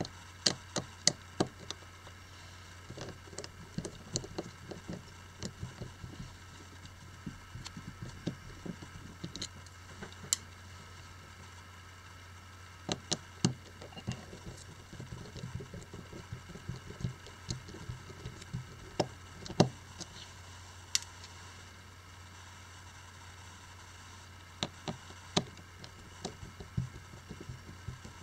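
Precision screwdriver working the tiny screws in a Sony Xperia Z1 smartphone's frame: irregular small sharp clicks and ticks of the bit against the screws and frame, some in quick clusters of several.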